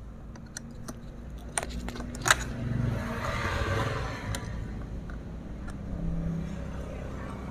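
Scattered sharp metal clicks and clinks from hand tools and chainsaw parts as a Stihl MS 651's handle is being taken off, the loudest about two seconds in. A low rushing sound swells and fades in the middle.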